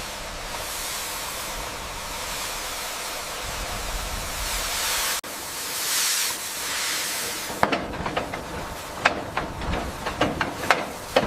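A steam locomotive hissing steadily as it vents steam, with a brief break about five seconds in. In the last few seconds it gives way to a run of irregular sharp clicks and knocks.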